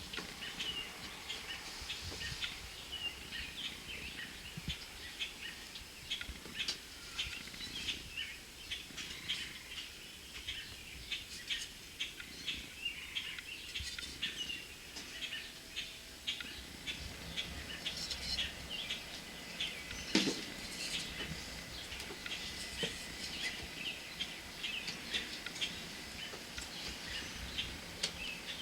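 Small birds chirping busily, many short high chirps throughout, with a single sharp knock about twenty seconds in.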